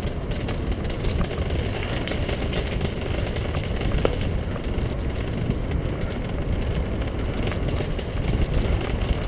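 Wind rushing on the microphone and tyres rumbling over a rough dirt path during a fast ride, with scattered clicks and rattles, one sharper about four seconds in.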